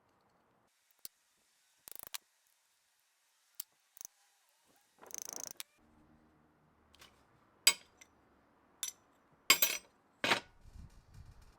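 Small metal parts and hand tools being handled: scattered sharp clicks and clinks, a short rattling scrape about five seconds in, and a cluster of louder knocks near the end.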